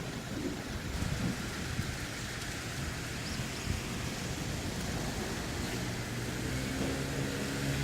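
Steady rushing noise with wind buffeting the microphone in low rumbles; a low engine hum comes in about six seconds in.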